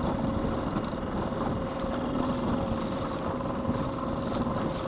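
Small gas outboard motor running at a steady speed, pushing a small plastic fishing boat along, with water rushing along the hull.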